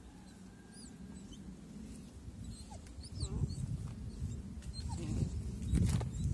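A puppy gives a few short, high whines over rustling, which grows louder about halfway through as the puppy noses into a plastic bag.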